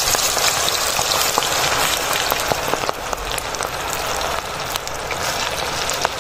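Pakora batter deep-frying in hot oil in an aluminium pot: a steady dense sizzle with scattered crackles and pops, a little quieter from about halfway through.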